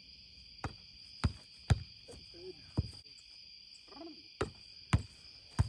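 A boardball being hit, slapped and caught in play: about seven sharp smacks at irregular intervals. A steady high chorus of night insects such as crickets runs under them.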